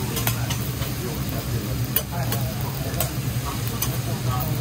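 Metal okonomiyaki spatulas clicking and scraping on a steel teppan griddle, with a handful of sharp clinks, while the food sizzles on the hot plate. A steady low hum sits under it all.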